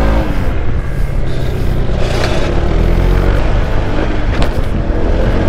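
Honda ADV160 scooter ridden flat out, its single-cylinder engine note dipping and then climbing again under heavy wind rush on the microphone. Two brief knocks come around two and four seconds in.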